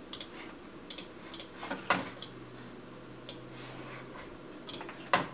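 Computer mouse button clicking, about eight sharp clicks spread irregularly, the loudest about two seconds in and near the end. A faint steady low hum sets in about two seconds in.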